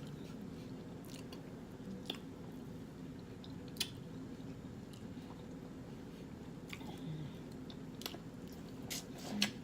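A person chewing and biting into seafood-boil food at close range, with scattered wet, sharp mouth clicks and smacks.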